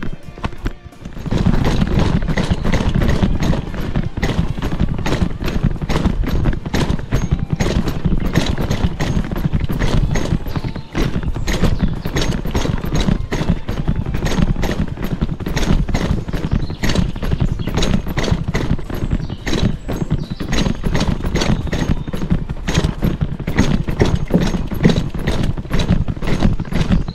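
Mountain bike rattling and clattering over a rough, stony trail: a dense run of rapid irregular knocks from the frame, chain and camera mount, with a heavy rumble, starting about a second in.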